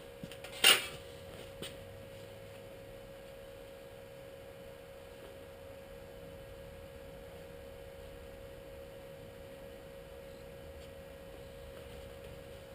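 A single sharp knock under a second in, with a faint click after it, against a steady faint electrical hum.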